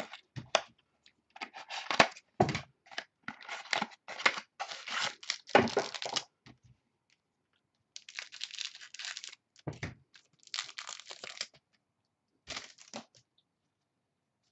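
Trading-card pack wrappers being torn open and crinkled by hand, in a run of short ripping and rustling sounds that is densest in the first half. There is a light knock partway through.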